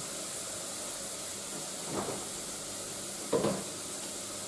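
Leek and bacon frying in a pan: a steady sizzle, with a soft knock about two seconds in and a louder clink of kitchenware about three and a half seconds in.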